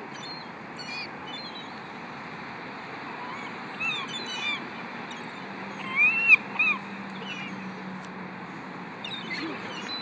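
Seagulls calling over a steady outdoor hiss: a few short calls about four seconds in, then the loudest, three arched calls, about six seconds in, with faint high chirps scattered throughout.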